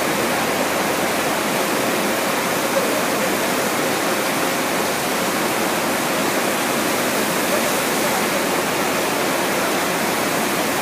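Steady rush of water from a FlowRider surf simulator, its pumped sheet of water pouring fast up the padded slope under the riders' bodyboards.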